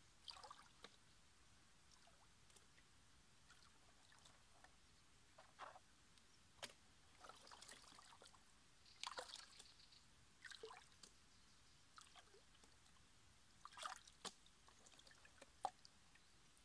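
Plastic gold pan being dipped and swirled in shallow water, washing gravel down during gold panning: faint, irregular sloshes and trickles of water every second or two, with a couple of sharp ticks.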